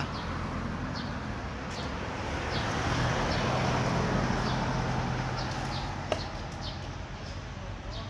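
A motor vehicle passing, its engine hum and road noise swelling and then fading over several seconds. Faint, short, high bird chirps come about once a second. A single sharp click sounds about six seconds in.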